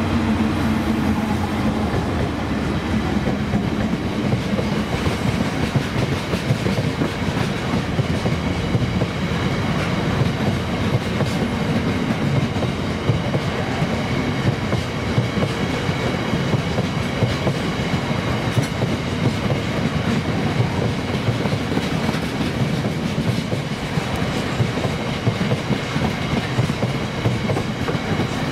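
A freight train's long rake of cement tank wagons rolling past at speed, the wheels clattering steadily over the rail joints. The Class 70 diesel locomotive's engine fades away in the first couple of seconds.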